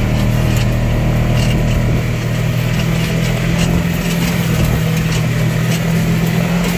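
Vehicle engine running steadily as it drives slowly over a rough, rocky wash, heard from inside the cab, with occasional knocks and rattles as it goes over bumps.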